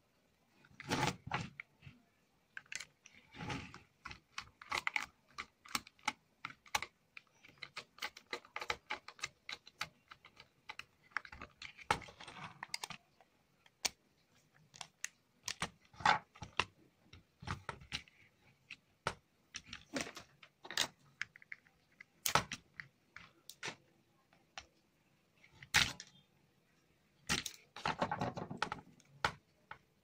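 Irregular clicks, taps and short rustles of hands handling a plastic switchboard and its wiring, like the sound of typing.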